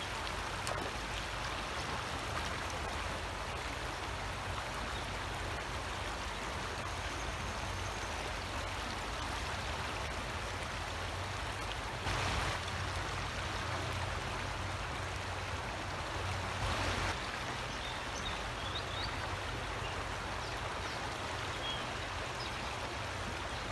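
Creek water running over shallow riffles, a steady rushing that swells briefly twice, about halfway through and again about two-thirds of the way through.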